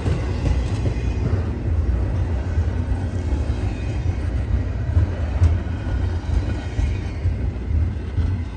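Freight train rolling slowly past, a steady low rumble of wheels on rail with scattered clicks and clanks from the cars, and a sharp knock about five seconds in.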